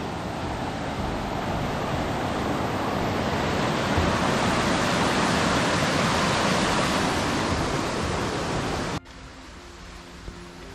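Rain-swollen stream rushing over rocks: a loud, steady rush of water that cuts off abruptly about nine seconds in, leaving a much quieter background.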